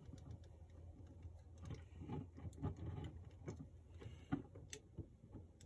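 Hands handling an assembled plastic Zoids Death Stinger model kit: faint, scattered clicks and rustles of plastic parts, over a low steady hum.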